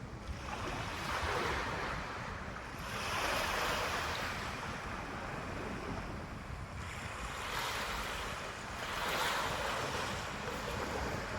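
Ocean waves washing in and breaking, surging in about four swells of hiss, with low wind rumble on the microphone throughout.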